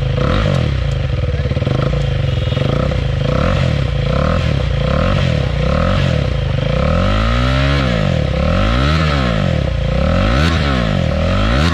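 KTM Duke 390's single-cylinder engine running on the stand through an aftermarket full-system exhaust. It holds a fairly steady speed at first, then from about halfway is blipped on the throttle again and again, the revs rising and falling roughly once a second.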